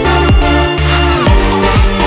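Electronic dance music with a steady pounding kick drum, about two beats a second.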